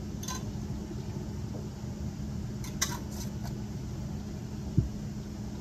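Metal canning lids and screw rings handled on glass jam jars: a few light clicks and clinks, the sharpest about three seconds in, and a dull knock near the end. A steady low hum from a kitchen appliance runs underneath.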